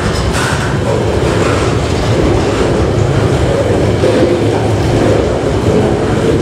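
A KiwiRail freight train rolling past, its wagons' wheels running steadily on the rails.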